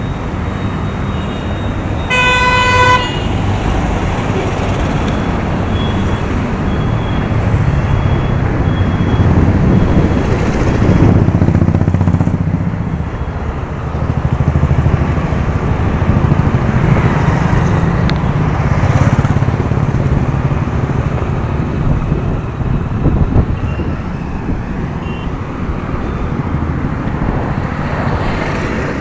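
Busy road traffic heard from a moving bicycle: motorbike, car and truck engines going by with steady road noise, and a vehicle horn honking once, for about a second, about two seconds in.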